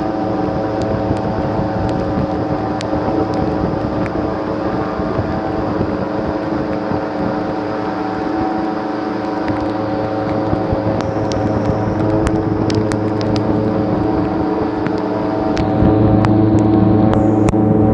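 Airboat engine and propeller running steadily at cruising speed, with scattered sharp ticks over it; it gets louder about sixteen seconds in.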